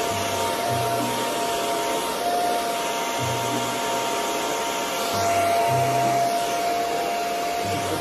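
Handheld hair dryer running steadily, blowing on thick natural hair: a constant rush of air with a steady whine in it.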